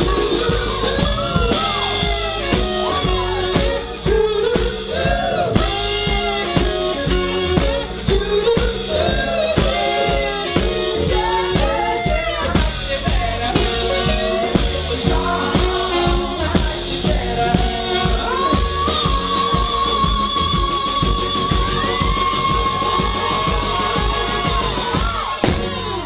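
A live soul and rhythm-and-blues band playing: a male lead vocal sings over electric guitar, bass, drums and saxophones, with a long held note toward the end.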